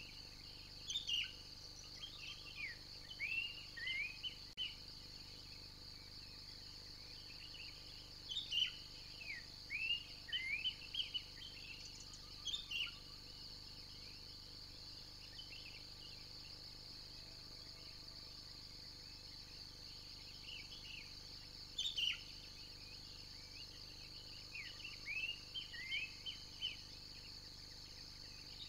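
Birds calling in spells of quick, falling chirps, three spells of a few seconds each, over a steady high-pitched drone of insects.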